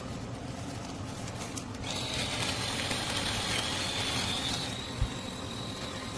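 Small battery-powered conical burr coffee grinder switched on about two seconds in, its motor running with a thin high whine over the grinding of beans. A short knock comes near the end.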